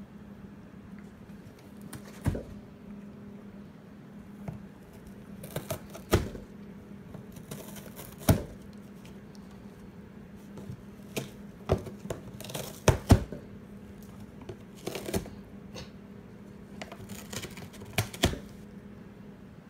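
Savannah cat tearing at a cardboard box with her teeth and claws: about a dozen short, sharp rips and snaps of cardboard at irregular intervals, over a faint steady hum.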